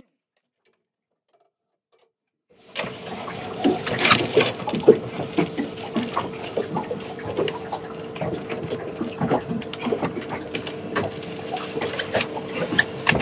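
Total silence for about two and a half seconds. Then a steady mechanical hum with a constant pitch sets in, overlaid by irregular clicks and knocks.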